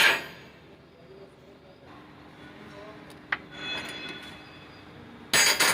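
A short, loud burst of hissing spray near the end, with a single tap about a third of the way in.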